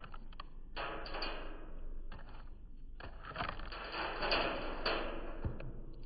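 Blue jay rummaging in the seed on a feeder tray: irregular clicks, taps and rustling of seeds and husks, in two longer bouts, about a second in and again from about three seconds in.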